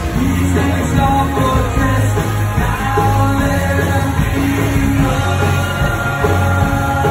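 Live rock cover band playing loud: electric guitars, bass and drums, with a woman singing lead.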